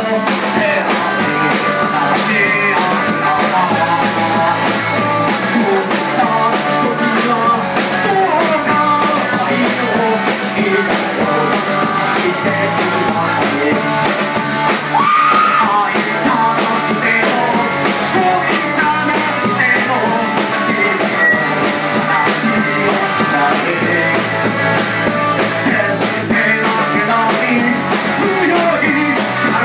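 Live rock band playing loud and steady: electric guitars and a drum kit, in an up-tempo punk-leaning rock number.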